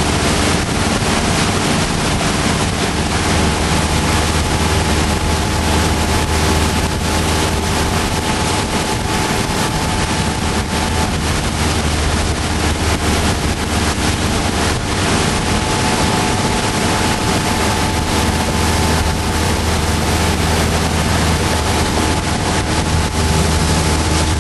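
Motorboat engine running steadily at towing speed, a constant low hum under the rush of the wake and heavy wind noise on the microphone.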